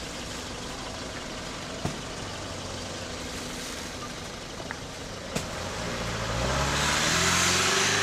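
A car or truck engine grows louder from about six seconds in, its pitch rising as the vehicle drives up close with tyre noise. Two sharp knocks come earlier.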